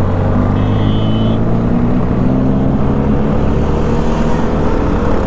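KTM 390 Duke's single-cylinder engine running steadily while riding, its pitch rising slowly in the second half as it picks up revs.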